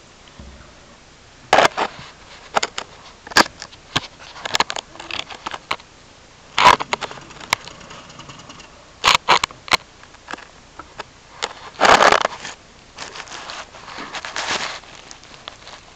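Wood-shavings bedding rustling and crackling right at the microphone, in irregular clusters of sharp clicks and scrapes, the loudest about a second and a half in, near seven seconds and around twelve seconds.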